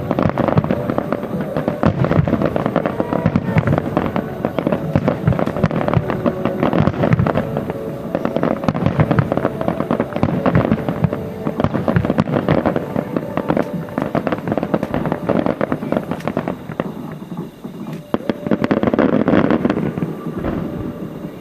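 Dense barrage of aerial fireworks bursting and crackling, many reports in rapid succession, with music playing alongside; the barrage thins out near the end.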